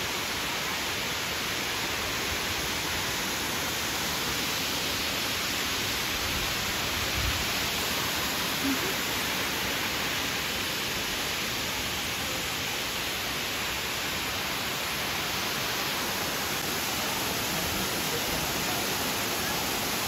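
Amicalola Falls, a tall cascading waterfall, with its water rushing in a steady, even, soothing hiss.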